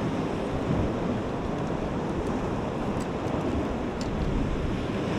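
Sea surf washing steadily against rocks, with wind buffeting the microphone. A couple of faint light ticks come about three and four seconds in.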